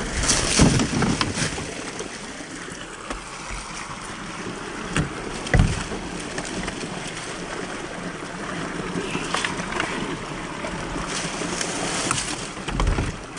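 Steady rush of a small stream running over rock, with scattered knocks and rustles of dry brush. The loudest knocks come near the start and about five and a half seconds in.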